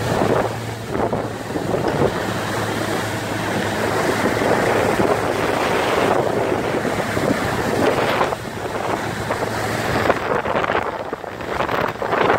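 Motorboat running at speed, with wind buffeting the microphone over the rush of water in the wake. A steady low hum from the outboard motor runs under it and drops away about ten seconds in.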